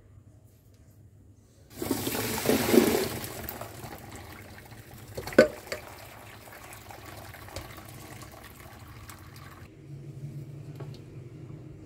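Cooking water from parboiled rice and broad beans poured out of a pot through a perforated stainless-steel colander into a sink: a sudden gush begins about two seconds in and tapers to a trickle and dribble, with one sharp knock about five seconds in.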